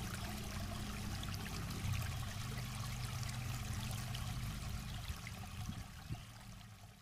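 Water trickling and splashing softly among the rocks of a forest creek, over a low steady hum, fading out near the end.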